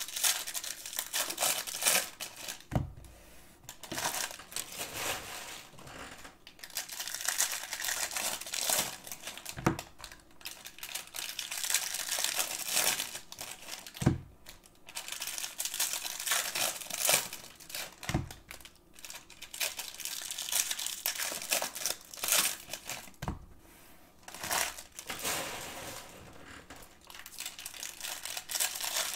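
Foil wrappers of Bowman baseball card packs torn open and crinkled by hand, in irregular rustling bursts, with a few soft knocks as packs or card stacks are set down on the table.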